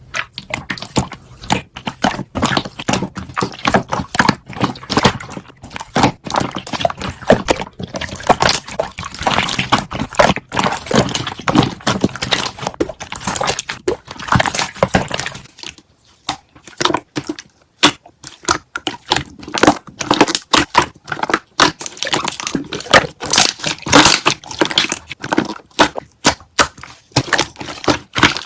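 Slime being squeezed and pressed by hand, its trapped air bubbles popping in a dense, rapid run of sharp crackling pops, with a brief pause a little past halfway.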